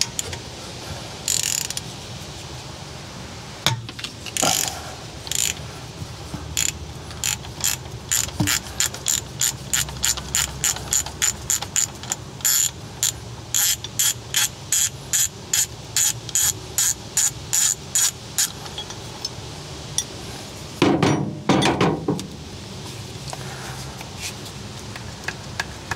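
Hand ratchet wrench clicking as an engine mount bolt is loosened, a long even run of ratchet strokes at about two a second. A louder metallic clatter comes about 21 seconds in.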